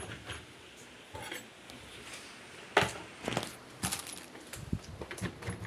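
A series of light clicks, clinks and knocks of small hard objects being handled, the loudest a sharp knock a little under three seconds in.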